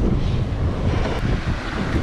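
Wind buffeting the microphone in a heavy, uneven rumble, over small surf waves washing up the sand.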